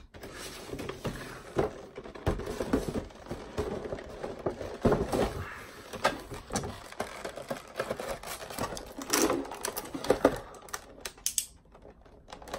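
Action-figure packaging being handled: a cardboard box and its clear plastic blister tray rustling, scraping and clicking irregularly as the tray is slid out of the box. It goes quieter near the end.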